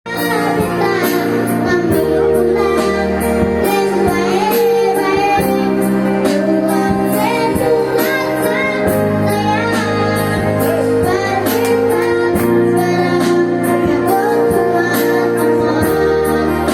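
A boy's high singing voice carrying a melody over backing music with a steady beat.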